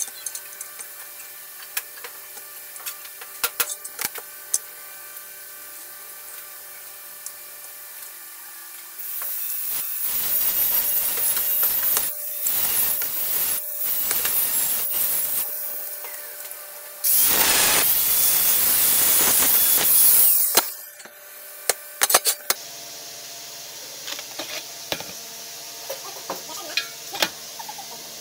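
A power tool working on material in two runs: a rough, uneven stretch starting about nine seconds in and lasting several seconds, then a louder, hissier run of about three seconds. Before and after, scattered clicks and knocks over a steady hum.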